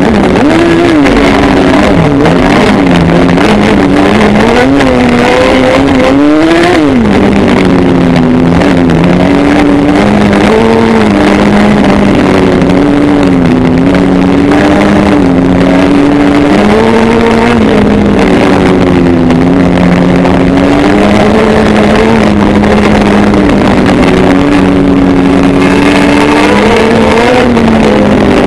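Formula Jedi single-seater's motorcycle engine heard on board, loud and close, revving up and down continuously as the car is driven. About six seconds in the revs climb quickly and then drop away abruptly, and they rise again near the end.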